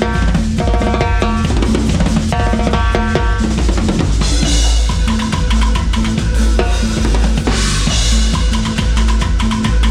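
A cumbia band playing live, heard close to the drum kit: bass drum, snare and rimshots drive the beat over bass and held chords, with cymbal crashes about four seconds in and again near eight seconds.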